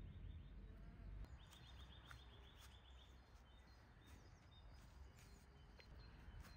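Faint outdoor ambience with a small bird singing a fast, high-pitched trill of rapidly repeated notes from about a second and a half in, plus scattered short high chirps.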